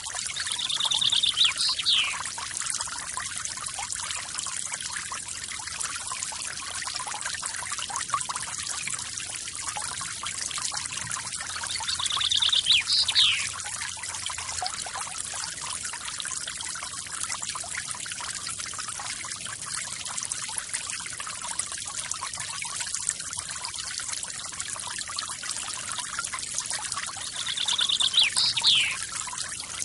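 Waterfall's steady splashing rush of falling water. A bird call sounds three times, near the start, in the middle and near the end: a short rapid trill followed by a quick falling whistle.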